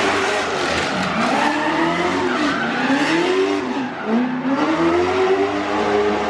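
Drift car on track, its engine revving up and down several times over the hiss of spinning, skidding tyres.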